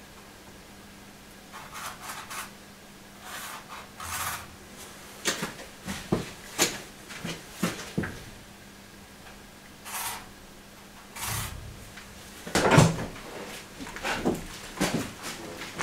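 Scattered handling noises of work at a car's front end: light knocks, clicks and scrapes, the loudest knock about 13 seconds in, over a faint steady hum.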